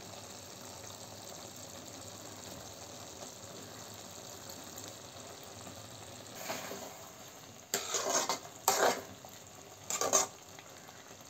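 Potato masala cooking in a kadai with a faint, steady sizzle, then a spoon stirring and scraping against the pan in several short strokes over the second half, mixing in freshly added coriander leaves.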